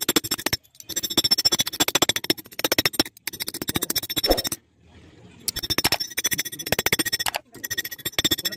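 Claw hammer rapidly striking a metal spoon against a flat steel bar, beating the spoon's bowl flat to shape a mini trowel: quick ringing metallic clinks, many a second, in several runs broken by short pauses.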